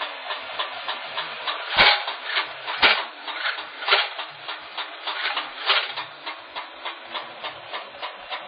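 Homemade combat robot's side cutter disc spinning on its 300 rpm motor, giving a rapid, even ticking of about five ticks a second. Louder knocks break in about two, three, four and six seconds in.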